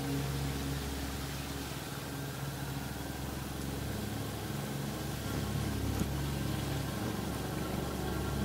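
A Royal Enfield Classic 350's single-cylinder engine running at a steady, low engine speed.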